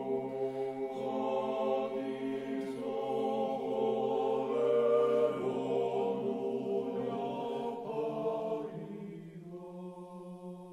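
Background music: slow sung chant with long held notes over a sustained low note, fading out over the last couple of seconds.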